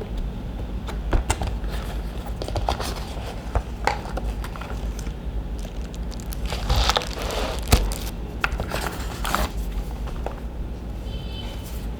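Crinkling and rustling of packaging being handled, with scattered clicks and knocks and a steady low hum underneath.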